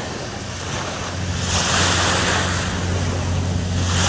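Sea surf washing in and wind buffeting the microphone, the wash swelling twice. A steady low hum comes in about a second in.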